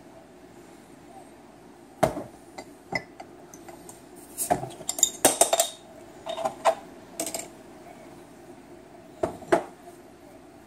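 Crown cap being taken off a brown glass beer bottle: a string of sharp metallic clicks and clinks against the glass, thickest about halfway through, with two more near the end.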